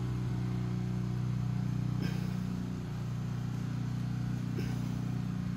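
A steady low mechanical hum from an unseen machine, with two faint clicks as plastic wiring connectors are handled, about two seconds in and near the end.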